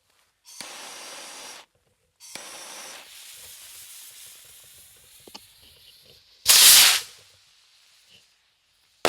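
Consumer firework rocket firing: the fuse hisses, then the rocket launches with a hissing whoosh that fades as it climbs, and about four seconds later it bursts with a loud bang. A second sharp pop comes right at the end.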